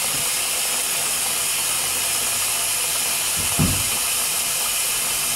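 Hot water running from the tap into a plugged, nearly full bathroom hand basin: a steady splashing hiss.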